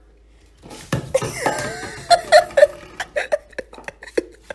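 A person laughing in repeated bursts, starting about a second in, with a few sharp knocks between the laughs.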